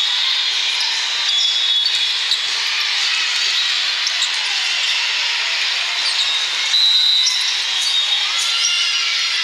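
Echoing din of a crowded indoor volleyball hall: many short, high sneaker squeaks on the court floors and the thuds of balls being hit and bouncing, over a steady background hubbub.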